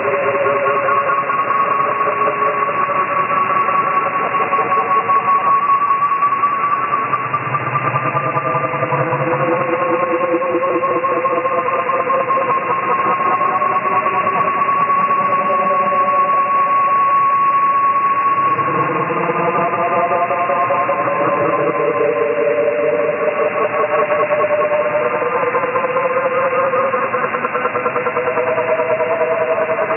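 Shortwave radio receiver tuned to 13590 kHz, putting out a strange signal: several warbling tones that shift in pitch every few seconds, over a steady hiss of static, all in narrow radio-band audio.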